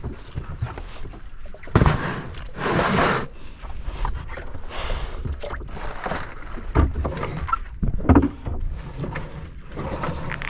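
Water sloshing and splashing around a small open boat that is not under power, in irregular surges with a few short knocks.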